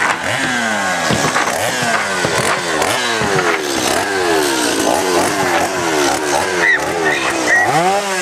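Chainsaw engine revved over and over, its pitch falling after each rev, with one slower rise and fall near the end.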